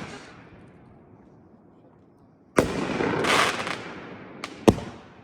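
Consumer aerial firework cake firing: a quiet gap after the echo of a bang, then a sudden launch thump with a hissing rush lasting over a second, and a sharp bang of the shell breaking about two seconds after the launch.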